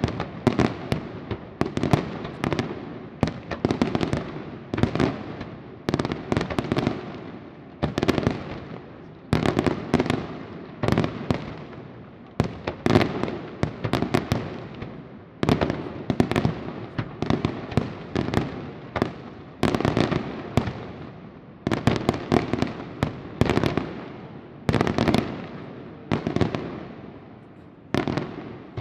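Aerial fireworks shells bursting in quick succession, with sharp bangs about one to two a second, each trailing off in an echo.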